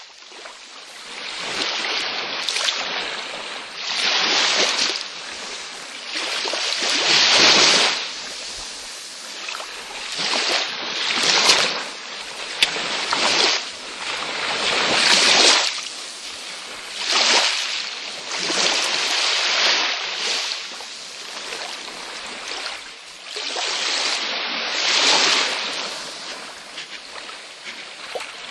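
Waves washing ashore on a beach, each surge of hiss swelling and fading again about every two to three seconds.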